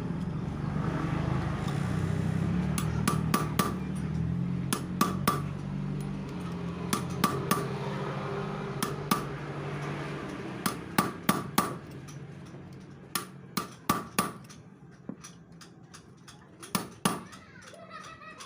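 A hammer striking metal in quick groups of two to five sharp, ringing blows, about two dozen in all, with pauses between groups. A low steady hum sits under the first half and fades out.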